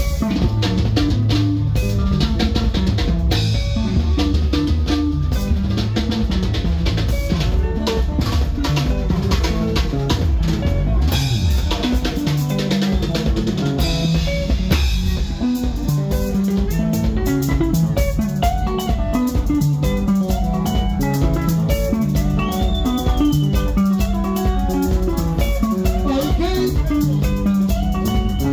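Live sungura band playing an instrumental stretch: interlocking electric guitar lines over bass and a drum kit keeping a steady, fast beat.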